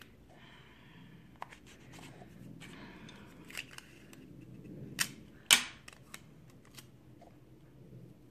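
Soft rustling and scratching from handling a small plastic bead-container lid and its paper label, then two sharp plastic clicks about half a second apart, a little past halfway.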